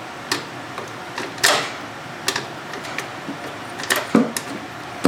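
Irregular sharp metal clicks and knocks, about seven, from hand tools and small metal parts being handled while a garden tractor's shifter is put back together. The loudest knock comes about a second and a half in.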